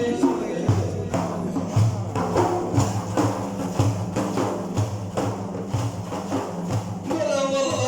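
Instrumental break in a sung folk song: a rhythmic percussion beat over low sustained bass notes. The singing voice comes back in near the end.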